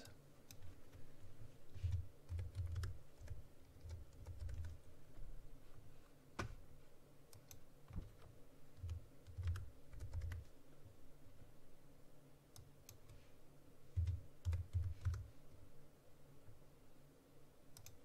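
Typing on a computer keyboard in three short, faint bursts of key presses, with a few separate clicks between them.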